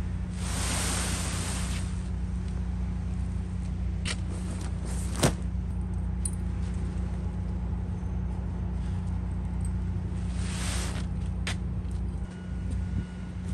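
Heavy tarp rustling and swishing as it is rolled up, in two bursts, near the start and about ten seconds in. A sharp knock, the loudest sound, comes about five seconds in. A steady low hum of an idling engine runs underneath.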